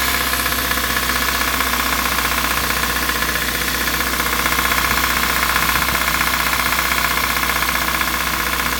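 Kia Rio's 1.6-litre Gamma inline-four petrol engine running steadily, with a fast, regular metallic knock.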